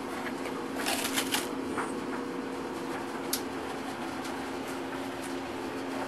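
Handling of a cardboard box with sai resting in tissue paper: a short cluster of rustles and clicks about a second in and one sharp click a little past three seconds, over a steady low hum.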